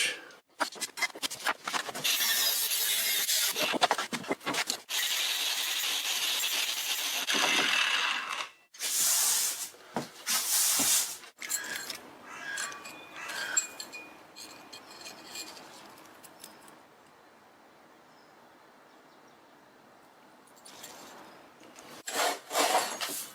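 Harsh scraping and rasping of a hand tool worked on material, in several long continuous passes separated by short breaks, then a few shorter strokes that die away to near quiet before starting again near the end.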